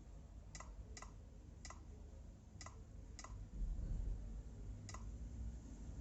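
Six separate key presses on a Dell Inspiron 15 3000 laptop's newly fitted keyboard, each a short sharp click, at uneven intervals while individual keys are tested. A dull low bump of handling comes about halfway through.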